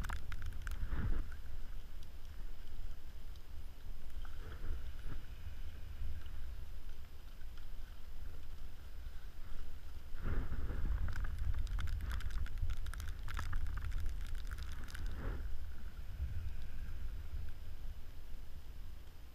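Wind rumbling on the microphone on open ice, with a few short clicks and scrapes about ten to fifteen seconds in from handling ice-fishing gear.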